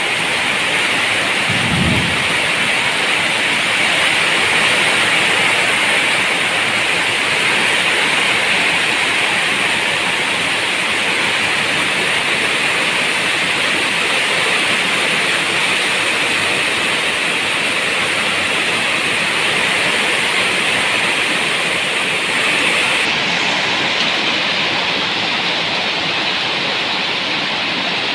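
Steady heavy rain, an even hiss with no breaks, with a brief low thump about two seconds in.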